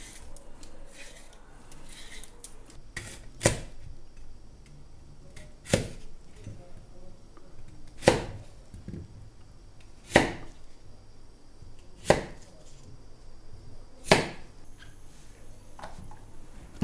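Kitchen knife chopping thick white asparagus into chunks on a wooden cutting board: six sharp knocks of the blade on the board, about two seconds apart.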